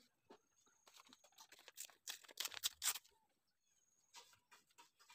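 Paper pages of a small handmade journal rustling and crinkling as they are handled and folded open, with the loudest rustles about two to three seconds in.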